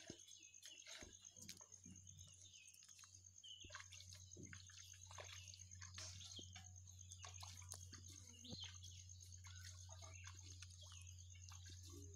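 Faint wet clicks, squelches and slaps of a heap of freshly caught small catfish and snakeheads being turned over by hand, over a steady low hum.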